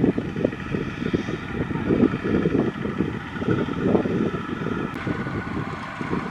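Engines of several two-wheel walking tractors chugging unevenly as they haul rice-sack trailers, with a combine harvester running steadily underneath.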